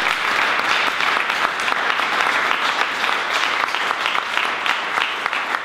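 An audience applauding at the end of a talk: many hands clapping together in a dense, steady patter.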